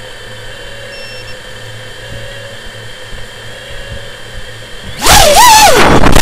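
FPV racing drone's brushless motors and propellers, heard from its on-board camera. A quiet steady hum gives way about five seconds in to a sudden, very loud whine that rises and falls in pitch as the drone throttles up to launch.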